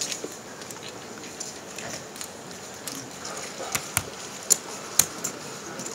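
Poker chips clacking as players handle their stacks at the table: a few sharp clicks in the second half over a steady low room hiss.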